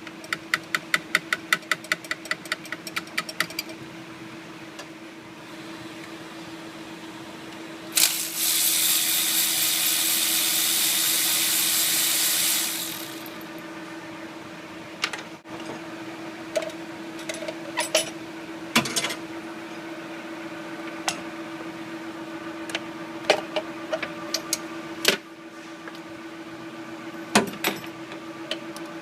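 Hand-tool work on a Ford 6.0 Powerstroke diesel: a run of quick, even ratchet clicks, then a loud steady hiss lasting about four seconds, then scattered clicks and knocks, over a steady low hum.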